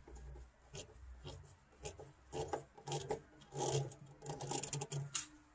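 A screw being tightened with a hand tool, metal rasping and scraping in a series of short, irregular turns.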